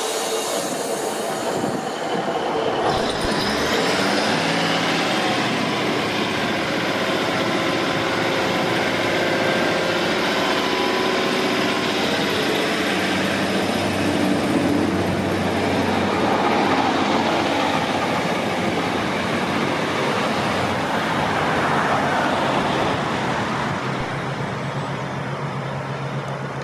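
Class 150 Sprinter diesel multiple unit pulling away from a station, its underfloor diesel engines working under power as the coaches roll past on the rails.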